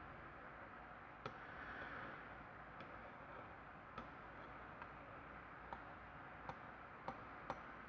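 A magnet clicking against the metal body and shackle of a copper-plated padlock, testing the steel under the plating: about eight faint, sharp clicks at irregular intervals over a low hiss.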